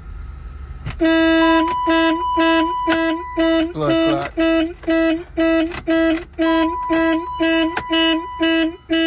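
BMW 850 car alarm going off as the ignition key is turned: the horn sounds in a loud, regular pulse about two and a half times a second after a longer first blast, with a steady high tone under it for stretches.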